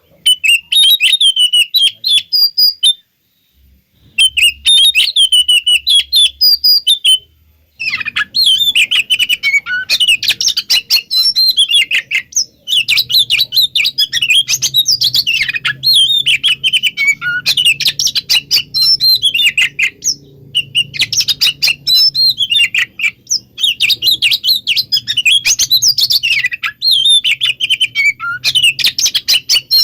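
Oriental magpie-robin singing in its fast, excited 'konslet' style: rapid high-pitched whistles and chattering phrases. The song pauses briefly about three seconds in and then runs on almost without a break from about eight seconds.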